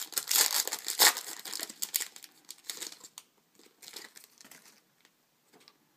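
Trading-card packaging crinkling as cards are handled, loudest over the first three seconds and fading out about five seconds in.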